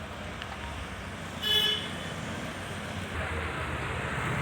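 Vehicle engines running in traffic, with one short horn toot about a second and a half in.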